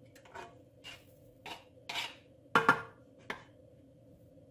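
Cut sausage pieces being scraped off a cutting board into a frying pan: a series of about six short scrapes and knocks of board and utensil against the pan, the loudest pair a little past halfway.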